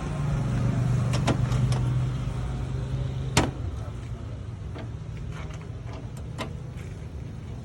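A car engine running with a steady low hum that drops a little about three and a half seconds in, under several sharp clicks and taps, the loudest just before the hum drops.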